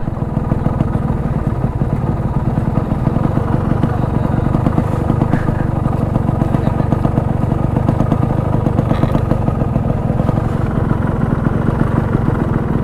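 Yamaha RX100's two-stroke single-cylinder engine running steadily, close by, with no revving.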